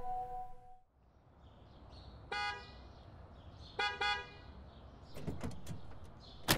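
Car horn tooting to get someone's attention: one short toot, then two quick toots about a second and a half later. A sharp knock near the end.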